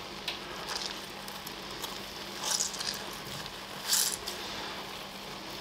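Wet squelching of rehydrated textured soy protein being squeezed by hand to press out the soaking water, a few short squishes, the strongest about two and a half and four seconds in. A faint steady hum runs underneath.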